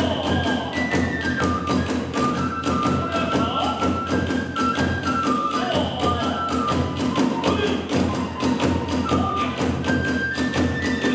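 Kagura hayashi music in a fast tempo. A bamboo transverse flute plays a melody of held notes stepping up and down over rapid, steady drum strokes and small hand cymbals.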